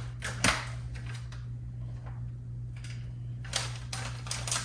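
Light kitchen handling sounds: a few scattered clicks and knocks, one about half a second in and several near the end, over a steady low hum.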